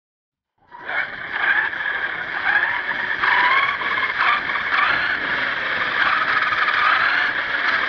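1/10-scale HSP RC monster truck running, its motor and drivetrain picked up by the camera mounted on the truck itself. The sound cuts in suddenly about a second in and then runs steadily, its pitch wavering with the throttle.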